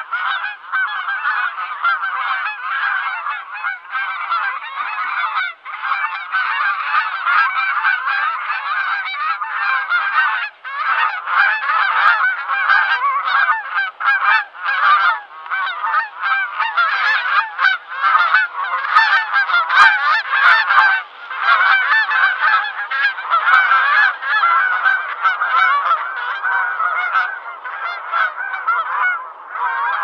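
A flock of geese honking continuously, many calls overlapping into a dense clamour with hardly a pause.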